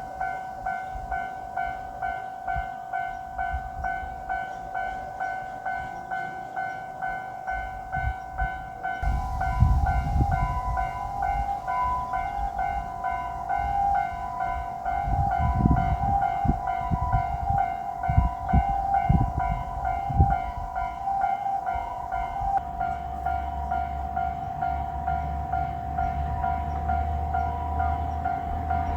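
Japanese railway level-crossing alarm ringing its steady repeating ding-ding the whole time, while a JR Shikoku 1500 series diesel railcar passes through: a heavy low rumble with wheel thumps from about eight seconds in until about twenty-two seconds in, then a steady low hum under the bell.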